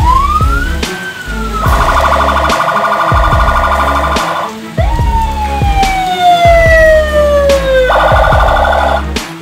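Emergency vehicle siren switching between a fast warbling yelp and long wails that rise and then slowly fall in pitch, with a steady bass beat underneath.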